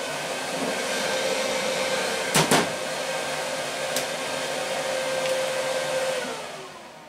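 K40 laser engraver's fans running with a steady rush and faint hum. There are clicks about two and a half seconds in and a switch click about four seconds in as the interior LED lighting is switched off. Near the end the fan noise winds down and fades.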